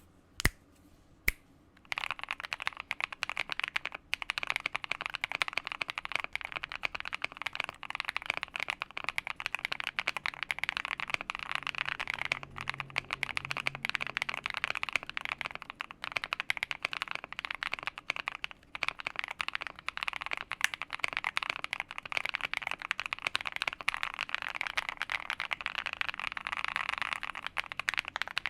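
Typing on a Monsgeek M1 mechanical keyboard with Akko Cream Yellow linear switches. Two single keystrokes come first, then about two seconds in a fast, continuous run of keystrokes with a soft, creamy clack.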